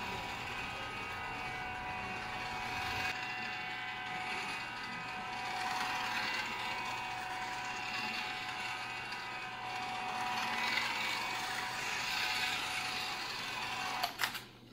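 WPL D12 RC kei truck's small electric motor and gearbox whining steadily as it drives across a wooden tabletop, with two sharp clicks near the end.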